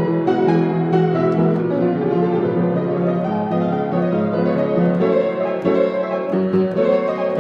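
Piano music, a continuous flow of struck notes in a classical style.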